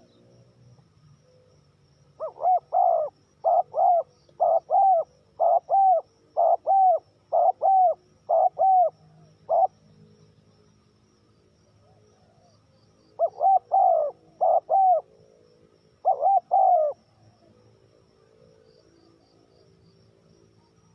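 Spotted dove cooing: a run of short, paired coos repeated for about seven seconds, then a pause and two shorter groups of coos.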